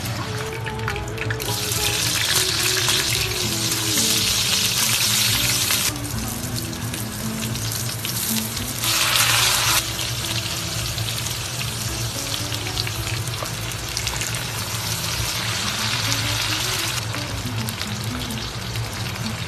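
Fried crucian carp and its sauce sizzling in a hot wok. The sizzle grows louder about a second and a half in and flares briefly near the middle, then settles to a steadier hiss.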